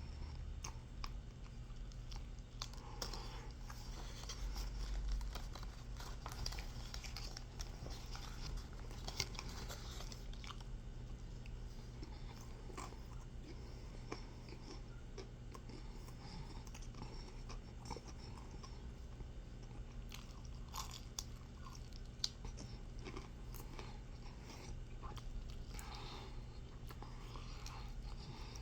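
A person chewing and crunching food close to the microphone, with many small irregular clicks and bites over a steady low hum.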